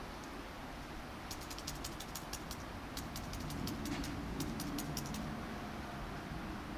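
A quick run of about twenty light, sharp clicks, roughly five a second, starting about a second in and stopping about five seconds in, over a steady background hum.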